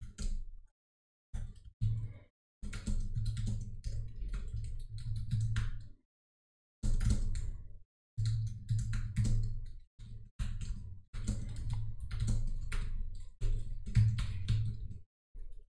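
Fast typing on a computer keyboard in bursts of one to a few seconds, with short pauses between them.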